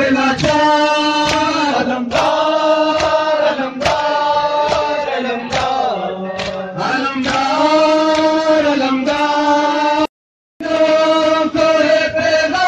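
Male voices chanting a noha, a Shia lament, in long drawn-out notes, with sharp slaps of matam (chest-beating) cutting through. The sound drops out completely for about half a second around ten seconds in.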